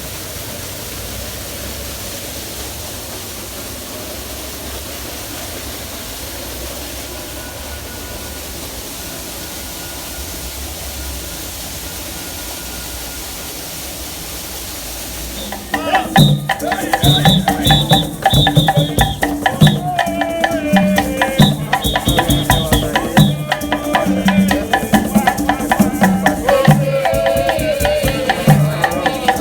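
A steady rushing noise, then about halfway through, louder music comes in: hand drums with a steady beat, shakers and a melody.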